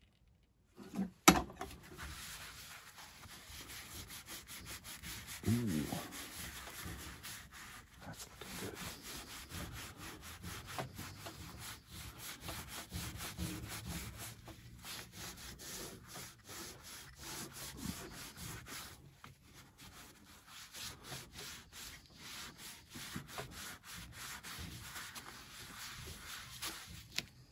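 A hand rubbing and scraping over a spray-painted, laser-etched ceramic tile lying on cardboard: a scratchy rubbing full of small ticks. A sharp knock comes about a second in.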